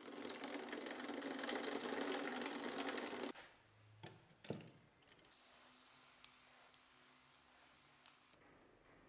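A rusty rebar rod stirring salt into water in a plastic bottle, a fast rattling scrape that stops abruptly about three seconds in: the salt-water electrolyte for electrolytic rust removal being mixed. Then quieter knocks, and a few sharp clicks near the end as wire is twisted around the hammer head with pliers.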